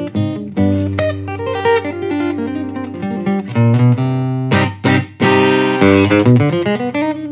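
Steel-string acoustic guitar played fingerstyle, with picked melody notes over a ringing bass line. About four and a half to five seconds in, three sharp percussive strikes cut through the notes.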